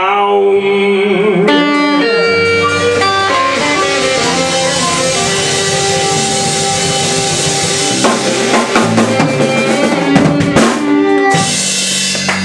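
Live blues band playing the closing bars of a song: harmonica over electric guitar and a drum kit with cymbals. Past the middle the band breaks into a run of separate accented hits, then ends on a held final chord.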